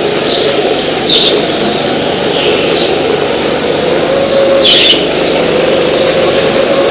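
Go-kart engines running at speed, their pitch rising slowly, with two short high squeals: one about a second in and another near five seconds.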